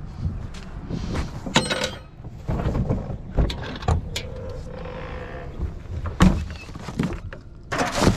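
A string of knocks and clattering, including a rattle of aluminium cans and plastic bottles, as a ute's tonneau cover is lifted over a tray heaped with them, over a low rumble.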